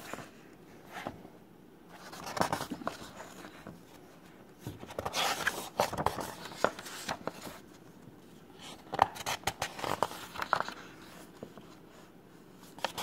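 Paper pages of a book rustling and being handled in several short bursts, with light clicks and scrapes.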